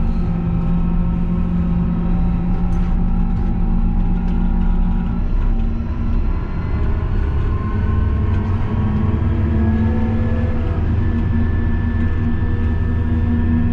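Fendt 828 Vario tractor's six-cylinder diesel engine and drivetrain droning steadily, heard inside the closed cab while driving on the road. The pitch eases a little around the middle and rises gradually through the second half.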